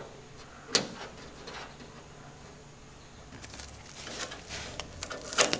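Masking tape being peeled off painted car bodywork and chrome trim: a sharp snap less than a second in, then crackly tearing from about halfway that builds toward the end.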